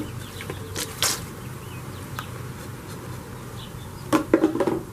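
Dry ice bubbling and fizzing steadily in a bucket of 91% isopropyl rubbing alcohol as the two are mixed, with a low hum underneath. There are a couple of sharp clicks about a second in, and a cluster of knocks near the end.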